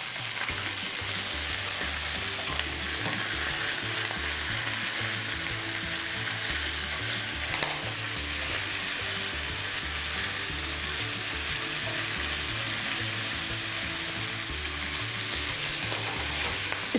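Food sizzling steadily in hot oil in a frying pan on a gas hob.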